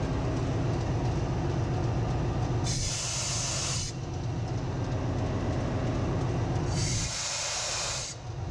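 Compressed air hissing out of a ship's control-air system drain twice, each blast about a second long, as condensate is blown off. Under it runs the steady low drone of the engine-room machinery.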